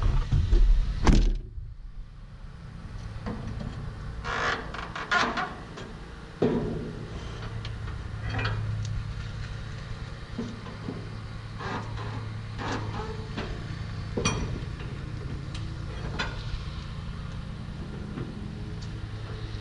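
Heavy vehicle engine running with a steady low hum, with scattered knocks and rattles over it. There are loud thumps in the first second and a half.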